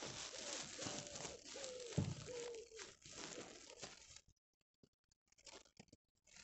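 Garden foliage rustling and crackling close to the microphone, with a bird calling in short repeated low notes about twice a second. Both stop about four seconds in, leaving a few faint clicks.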